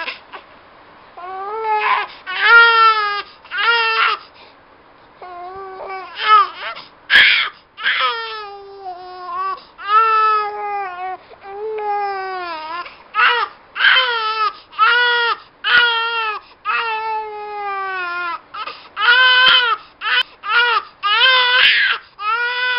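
A baby crying: a long run of loud wails, most falling in pitch, with short breaths between them and a briefer lull early on.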